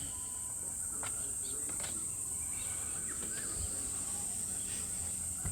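Steady high-pitched insect chorus, with a few faint light clicks of small plastic parts being handled.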